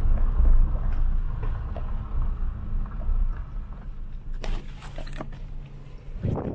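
Toyota Tacoma pickup driving slowly on a gravel road, heard from inside the cab: a low rumble of engine and tyres with scattered small knocks and rattles from the rough surface, and a cluster of sharper knocks about four and a half seconds in. A rush of wind noise comes in near the end.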